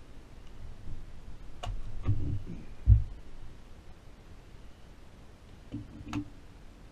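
Clicks and knocks as an AR-15-style rifle and its magazine are handled on a wooden shooting bench after firing, with a louder dull thump about three seconds in.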